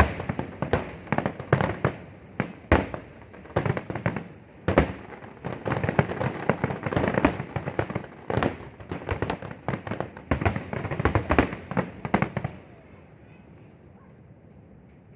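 Fireworks display: a rapid barrage of loud bangs, several a second, that stops suddenly about twelve seconds in, leaving only faint background noise.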